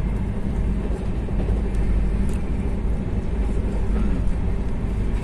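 Steady low rumble of a moving passenger train, heard from inside the coach.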